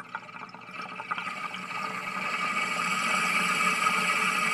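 Water bubbling in a small glass dab rig as someone draws a hit through it, starting as scattered gurgles and building into a steady, louder bubbling.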